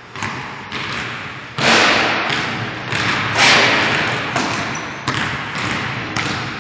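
A basketball bouncing on a gym floor in one-on-one play: about ten irregular, heavy thuds, each trailing a long echo of the large hall.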